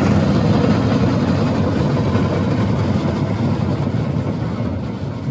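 Batucada drum ensemble playing together, a dense mass of drum strokes heavy in the low bass, slowly fading toward the end.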